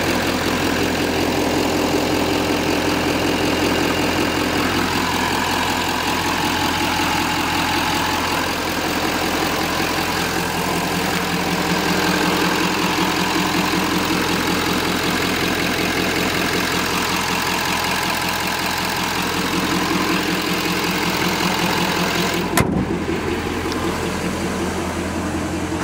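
2012 GMC Sierra 3500HD's 6.6-litre Duramax turbodiesel V8, fitted with an aFe intake, idling steadily with the hood open. A sharp click comes shortly before the end.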